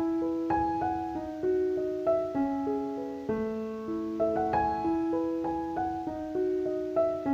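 Background piano music: a gentle melody of single held notes, each struck and then fading.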